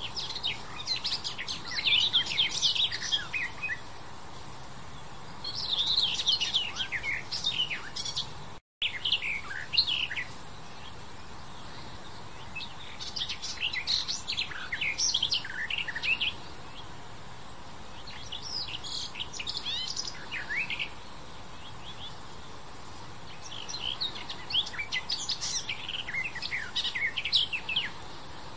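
Garden warbler (Sylvia borin) singing: about six long phrases of quick, varied notes, each lasting two to four seconds, with short pauses between them.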